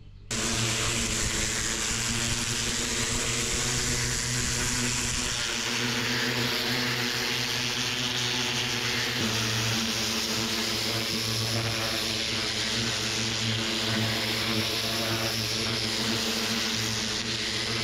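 Dibo pressure washer running steadily: a motor hum under the loud hiss of the high-pressure water jet. The hum shifts slightly about nine seconds in.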